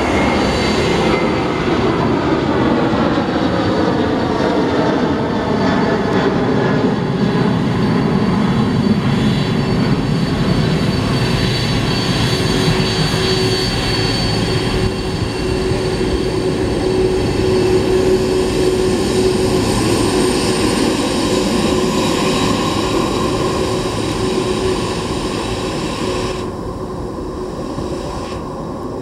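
Boeing 747 freighter's jet engines running as it rolls past close by on the ground: a loud, steady rumble with a high whine, the whine falling in pitch during the first few seconds. The sound eases off slightly near the end.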